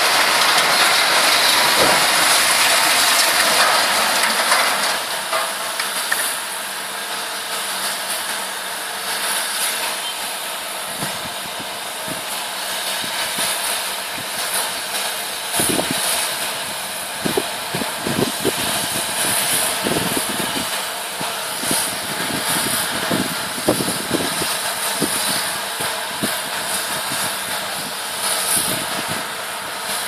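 Concrete minaret collapsing: a loud crash of falling masonry for the first few seconds. Then the steady noise of a running excavator engine, with scattered low thumps.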